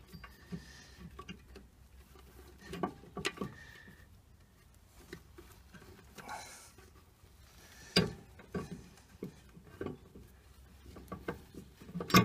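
Handling noise as a drive belt is worked onto the stepped pulleys inside a Record CL4 lathe headstock: scattered light knocks and clicks, with a sharper knock about eight seconds in.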